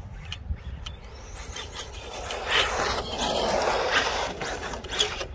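A 6S electric 1/7-scale RC rally car sliding on a loose dirt path: a gritty rush of tyres scrabbling and skidding that builds about two seconds in and eases near the end, with scattered ticks of flung grit.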